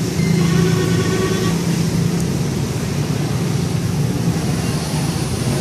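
Steady motor-vehicle traffic noise, a continuous low engine hum, with a brief higher pitched sound in the first second or so.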